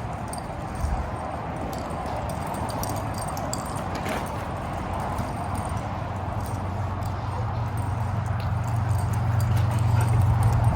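Dogs' claws clicking and scrabbling on a hard floor during rough play, a quick irregular patter of light taps. A low steady hum grows louder over the last few seconds.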